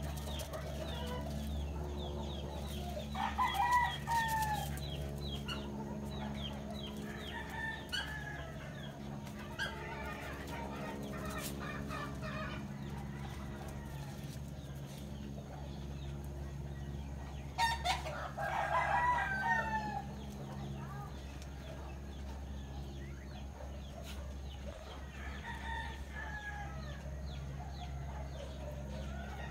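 Roosters crowing repeatedly, the loudest crows about three seconds in and again a little past the middle, with fainter ones between, over a steady low hum.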